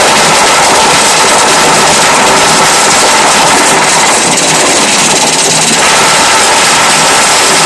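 Motor-driven sugarcane juice crusher running loud and steady, its gears and grooved steel rollers turning with a constant mechanical whir. Around the middle the tone roughens briefly as cane is pressed through the rollers.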